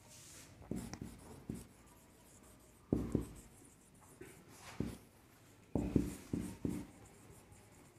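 Marker pen writing on a whiteboard: quiet, short strokes in a few separate clusters as a word is written out.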